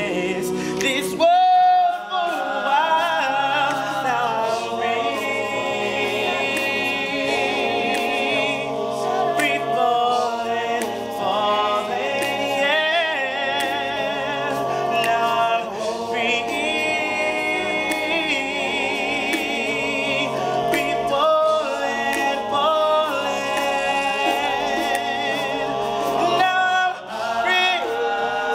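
All-male a cappella group singing: a lead voice sings with wavering vibrato over the group's sustained backing chords.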